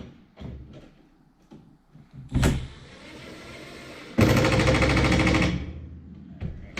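A short knock, then a power tool runs for about a second and a half with a fast rattling rhythm, driving a fastener.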